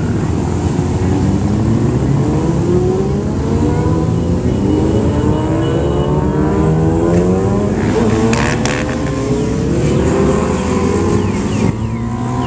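A procession of sportbike motorcycles riding past one after another. Several engines overlap, and their notes rise and fall as each bike accelerates by.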